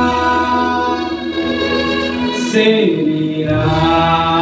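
A song playing loud, a voice holding long, steady notes, with a low bass that drops out briefly about two seconds in.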